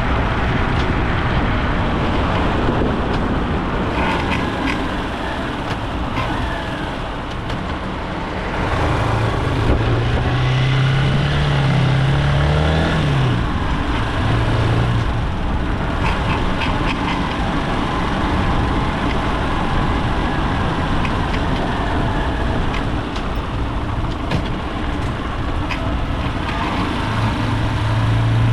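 Honda XR190 motorcycle being ridden, its single-cylinder engine rising in pitch about ten seconds in, then easing off. Off throttle, coasting or engine-braking, the bike makes a rasping noise like a scraped güiro that the owner cannot identify.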